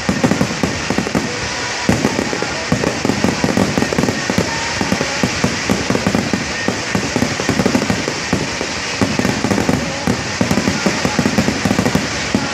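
Fireworks going off in a dense, continuous barrage: many sharp bangs and crackles every second, with no pause.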